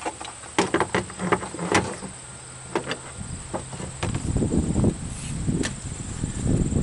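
Bolt cutters being handled and set on the battery cable ends: a run of sharp clicks and knocks, then low rumbling handling noise from about halfway through. Crickets chirp steadily in the background.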